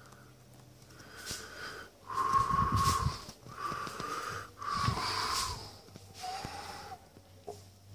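The drive mechanism of a 1930s Buckley coin-operated crane claw machine running, giving a string of squealing whines about a second long each, with some clatter under them. The last whine, near the end, is lower in pitch.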